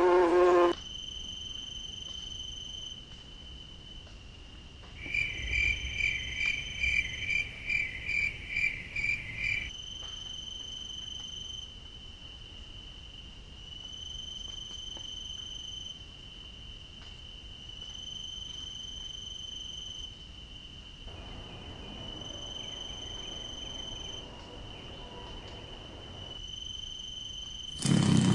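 A bee's buzz cuts off within the first second, then a cricket's steady high trill that stops and starts every couple of seconds. About five seconds in, a louder run of pulsed chirps, about two a second, comes in over it for some five seconds.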